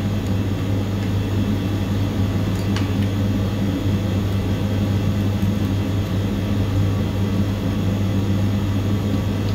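A machine running with a steady low hum and whir, unchanging throughout, with a light tap about three seconds in.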